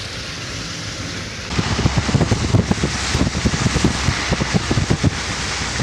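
Steady rain noise that jumps louder about a second and a half in, then heavy rain with many irregular low thumps buffeting the microphone.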